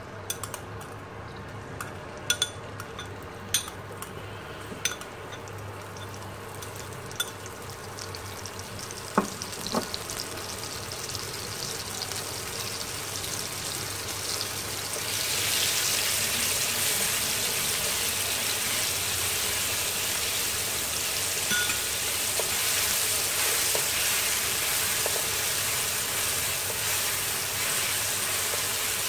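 Pounded chilli and garlic paste frying in hot oil in a wok as it is stirred. In the first few seconds a spoon clinks as it scrapes the paste from a glass bowl. About halfway through the sizzle grows suddenly louder and then stays steady.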